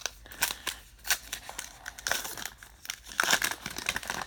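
Wrapper of a 2019 Topps Heritage baseball card pack crinkling as it is handled and opened, in a run of short, irregular crackles.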